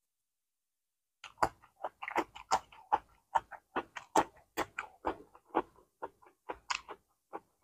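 Close-miked chewing of steamed rice rolls and fresh greens: wet, crisp mouth clicks and smacks about three a second, starting about a second in.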